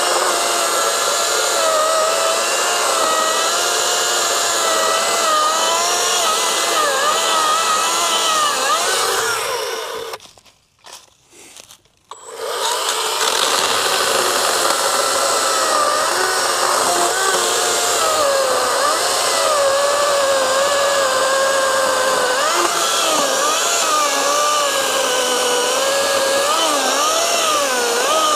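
Harbor Freight Atlas 40V 16-inch brushless battery chainsaw cutting into a log, its motor whine and chain noise rising and falling in pitch as the load changes. The saw stops about ten seconds in and starts cutting again a couple of seconds later.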